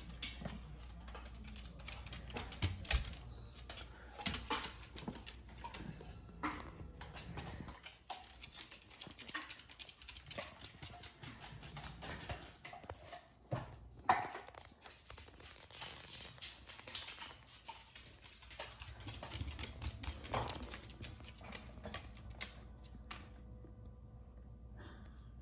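Irregular clicks and taps of a beagle's claws on a hardwood floor.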